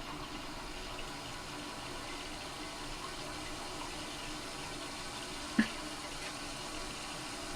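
Toilet tank refilling, water running steadily into the tank. A brief sharp sound cuts in a little over halfway through.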